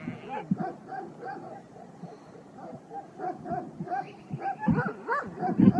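Dogs barking in a quick, steady run, about three barks a second, a little louder near the end. It is territorial barking between a young guardian dog and the shepherd dogs of a passing flock.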